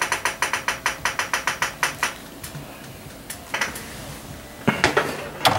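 Computer keys tapped in a fast, even run of about five clicks a second, stopping about two seconds in, then a few scattered key clicks and a short cluster of louder knocks near the end.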